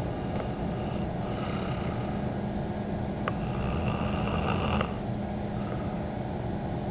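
A man snoring, with one long drawn snore from about two seconds in that cuts off sharply near five seconds.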